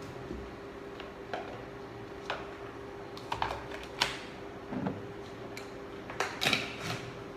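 Kitchen containers and utensils being handled on a counter and in a low cabinet: a scattering of light clinks and knocks, the sharpest about four seconds in and a quick cluster near the end, over a steady faint hum.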